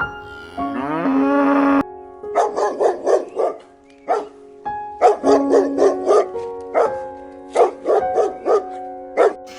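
A cow moos once about a second in, then a dog barks in quick runs of several barks, with short pauses between the runs.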